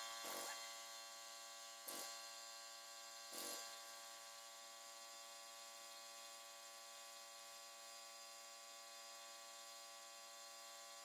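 A steady machine hum that fades slightly over the first few seconds and then holds even, with three brief knocks in the first few seconds.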